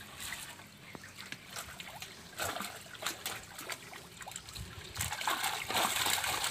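Water splashing and trickling around a fish net being handled at a floating fish cage, with scattered small splashes that grow louder and busier about five seconds in.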